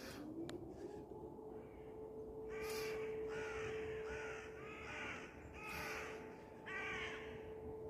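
Air-raid siren winding up in the first second, then holding one steady tone. From about two and a half seconds in, a bird gives a string of short harsh calls over it, about one a second.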